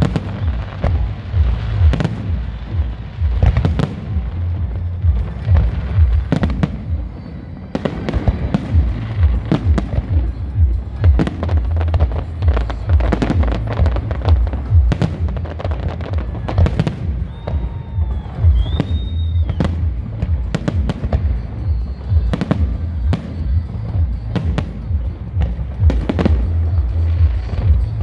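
Aerial fireworks display with shell bursts and crackling stars, sharp bangs coming several times a second without a break over a continuous low rumble. A brief high whistle sounds about two-thirds of the way through.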